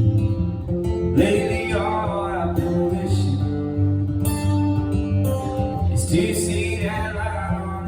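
Live acoustic guitar music from a song, with a wavering melody line heard twice over the guitar, about a second in and again about six seconds in, and no sung lyrics.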